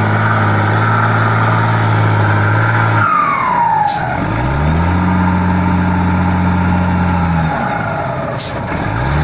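Wheel loader's turbocharged diesel engine held at steady revs. About three seconds in it comes off the throttle and the turbo whistle falls away, with a short hiss. It then picks back up and holds, drops once more with another hiss, and rises again near the end.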